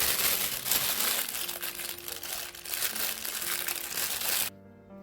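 Plastic piping bag crinkling and rustling as it is handled to fit a nozzle, stopping abruptly near the end.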